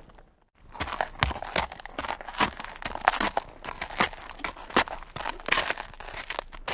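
A horse crunching and rustling in dry hay, with irregular sharp crackles. A short silence near the start breaks the sound.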